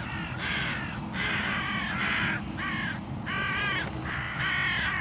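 A flock of hooded crows cawing, several birds giving a rapid run of harsh, overlapping caws as they circle overhead. These are agitated calls from birds that aren't happy, typical of crows mobbing at a decoy spread.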